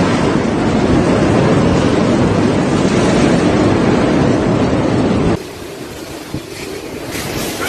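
Typhoon wind and heavy rain, a loud steady rush of noise. About five seconds in it cuts abruptly to quieter gusting wind with a few faint knocks.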